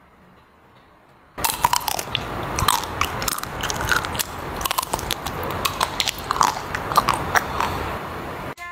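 Biting and chewing into a chocolate-and-almond coated Magnum ice cream bar, its hard chocolate shell cracking in a dense run of crunches. The crunching starts about a second and a half in and stops just before the end.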